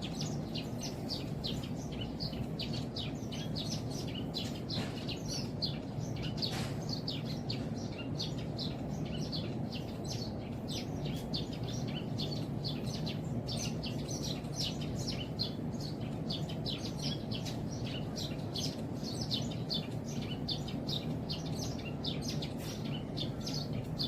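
A flock of Eurasian tree sparrows chirping without pause, many short high chirps several times a second, over a steady low background rumble.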